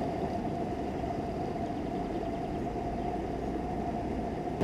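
Steady, muffled rush of shallow river current flowing over stones, with a faint steady hum under it.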